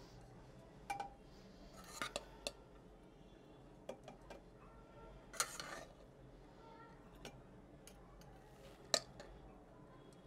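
Kitchen utensil knocking and scraping against a metal pressure cooker as boiled rice is spooned in for the first layer of a biryani: a handful of sparse, sharp clicks with a short scrape about halfway, the loudest click near the end.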